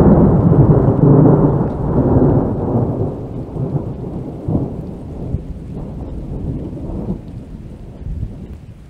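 Thunder: a loud, deep rumble that is strongest in the first two or three seconds, then rolls on with a few sharper cracks and gradually fades away.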